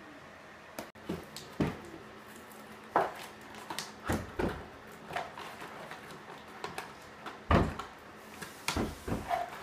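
Irregular knocks, clicks and scrapes of a toy box and its plastic pieces being handled during unboxing, with a few louder knocks among quieter ones.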